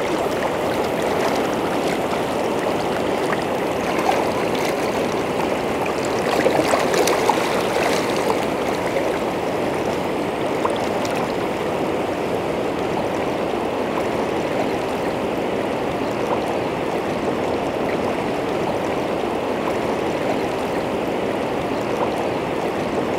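A shallow, fast-flowing river riffle rushing steadily, with an even, unbroken water noise.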